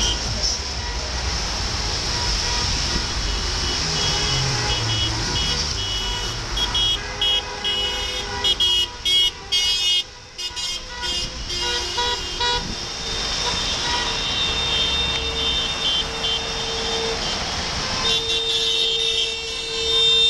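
Cars driving past on a wet road, with several car horns honking in many short toots at once, most densely in the middle and again near the end, over steady tyre and engine noise.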